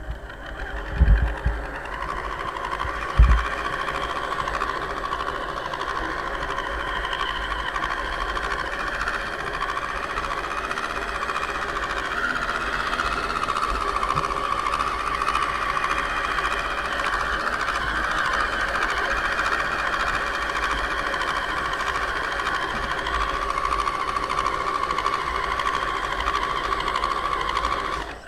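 Electric RC crawler's 55-turn brushed motor and gearbox whining steadily under drive, with a couple of low thumps in the first few seconds.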